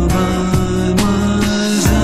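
Recorded instrumental music: a steady beat of about two drum hits a second over held bass notes, with a cymbal swell near the end.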